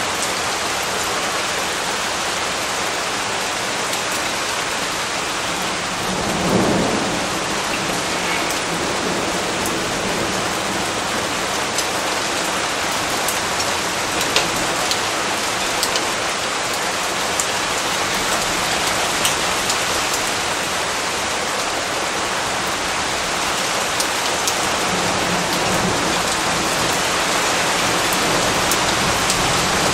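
Steady rain falling, with scattered sharper drop hits, and a brief low rumble of thunder about six seconds in.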